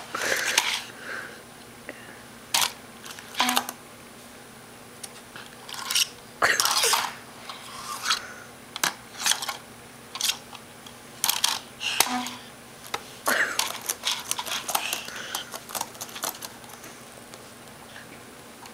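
A baby knocking a wired computer mouse against a laptop keyboard and pressing its keys. The result is irregular plastic clicks, taps and clatters, some coming in quick runs.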